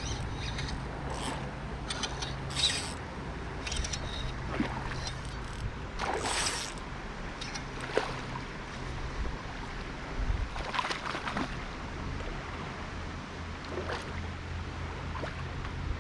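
River water sloshing and trickling, with scattered short splashes and knocks over a low steady hum.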